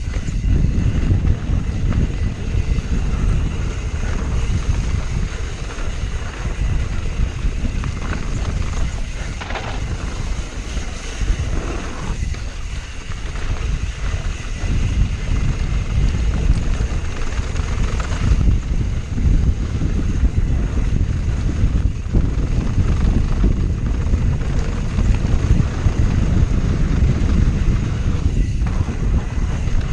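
Wind buffeting the camera microphone and mountain-bike tyres rumbling over a packed dirt trail during a fast descent, with occasional knocks from the bike over bumps.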